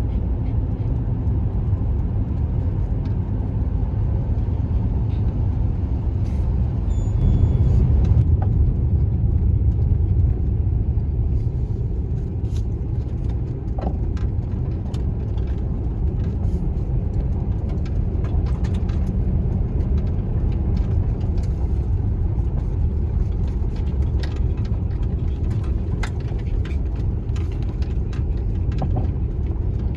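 Chevrolet Express van driving, a steady low engine and road rumble that swells a little about eight seconds in, with scattered light clicks and rattles.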